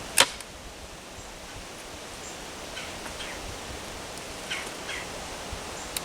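A single rifle shot from a Henry H015-308 single-shot rifle in .308, fired with a light load, a sharp crack just after the start, followed by a few faint clicks.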